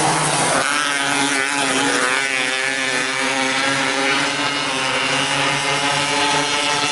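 270cc micro sprint cars running hard on a dirt oval, their engines at high revs. The pitch slides up and down as cars pass and come on and off the throttle, about one to three seconds in, then settles into a steadier drone.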